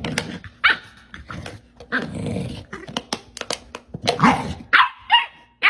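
Two dogs play-fighting, growling with a run of short, sharp barks; the low growl is strongest about two seconds in, and the loudest bark comes near the end.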